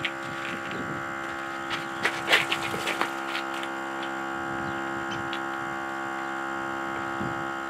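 Small 12-volt portable tire inflator compressor running with a steady hum while it airs up a Jeep tire. A short run of clicks and knocks about two to three and a half seconds in.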